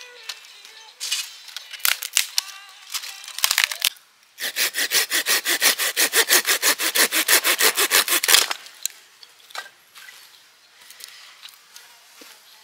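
Small hand saw cutting through a dry branch in quick, even strokes, several a second, starting about four seconds in and stopping after about four seconds. Before it, light rustling and knocks of handling the wood and saw.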